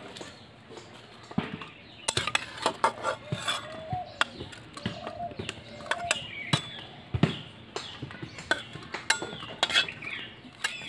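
A metal spoon clinking and knocking against an aluminium kadai and a steel plate as bitter gourds are lifted out of water and set down, in a quick irregular series of clinks from about two seconds in.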